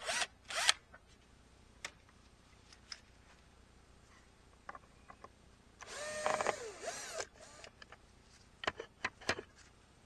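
Bosch cordless drill-driver backing screws out of a wooden crossbar: two short whirring bursts at the start, then a longer run with shifting pitch about six seconds in, followed by a few sharp knocks.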